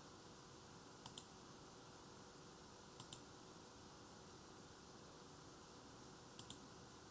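Computer mouse clicking three times, each click a quick pair of sharp ticks, over faint room hiss and a low hum.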